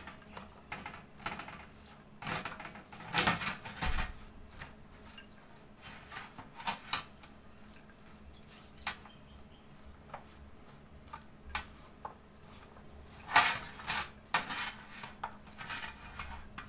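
Utensil stirring and tossing shredded cabbage coleslaw in a stainless steel bowl: irregular scrapes and clinks of the utensil against the metal bowl, with louder clusters of clinks about three seconds in and again near the end.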